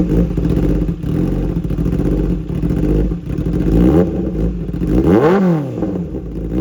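Kawasaki Ninja ZX-10R inline-four engine with an SC Project titanium full-system exhaust, running just after starting, then revved twice in quick blips that rise and fall in pitch about four and five seconds in.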